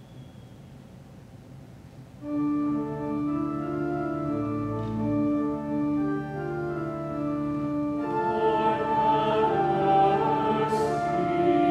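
Church organ starts playing about two seconds in, after a near-quiet pause, with sustained held chords over a low bass line that grow fuller and louder in the last few seconds.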